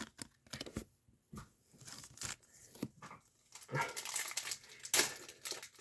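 A foil trading-card pack wrapper crinkling and tearing as it is pulled closer and opened, with light clicks of cards being handled. It is sparse at first and busier in the last two seconds.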